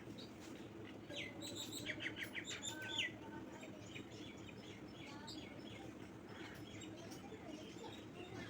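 Small birds chirping: a quick run of short, high chirps between about one and three seconds in, then scattered fainter chirps over a low steady background hum.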